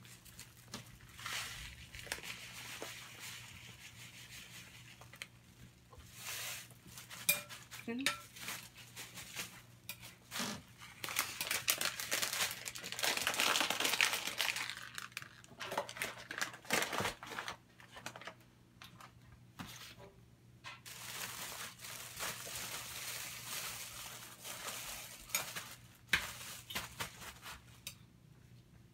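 Clear plastic bag crinkling as panko breadcrumbs are poured and worked into it, loudest about midway, with a utensil clicking against a glass bowl as eggs are beaten.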